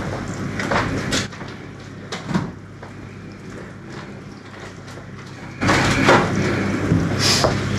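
A wooden spoon stirring thick soup in a stainless steel pot, with a few light knocks against the pot. About two-thirds of the way through, a louder, even rustling noise sets in and carries on.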